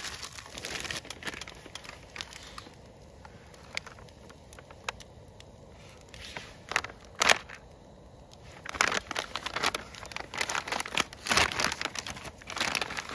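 Something crinkly being handled: irregular crinkling and rustling with scattered sharp clicks, sparse at first and coming in louder, denser bursts in the second half.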